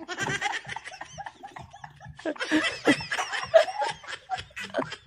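A woman laughing hard in a long run of short bursts, loudest a little past halfway.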